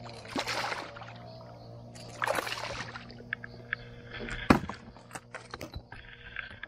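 Splashing from a hooked peacock bass thrashing at the water's surface beside a kayak, twice in the first three seconds. Then comes a run of sharp knocks and clicks, with one loud knock about four and a half seconds in, over background music.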